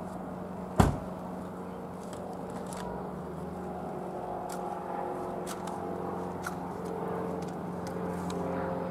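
Piper PA-28-180 Cherokee's four-cylinder Lycoming O-360 piston engine and propeller droning steadily overhead, growing slightly louder as the plane comes closer. A single sharp knock about a second in.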